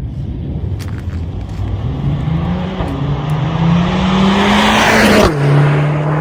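Stage 1 tuned Mercedes-AMG A45 S turbocharged 2.0-litre four-cylinder accelerating hard, its revs climbing steadily and growing louder. About five seconds in the pitch drops sharply at an upshift as the car passes, then the engine note holds steady.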